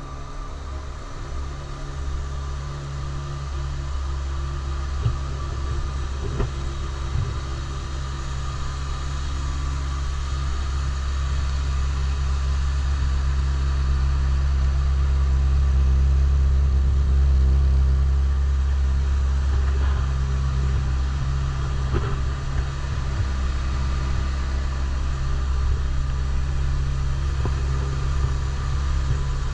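2011 Honda CBR600RR's inline-four engine idling steadily through its stock exhaust: an even, low rumble that grows gradually louder toward the middle and then eases slightly.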